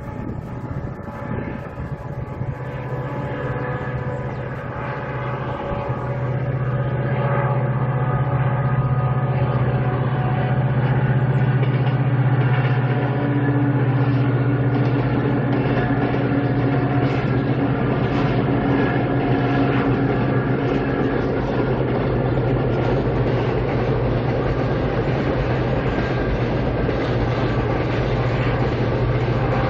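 Diesel locomotive hauling a freight train across a steel girder railway bridge: a steady low engine drone that grows louder over the first six seconds and then holds, with the rumble of the wagons' wheels on the rails.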